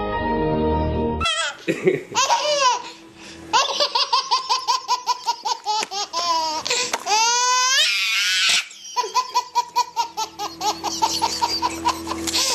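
A baby laughing hard in long runs of rapid, rhythmic laugh pulses broken by high squealing gasps, over a faint steady background tone. It is preceded by about a second of music.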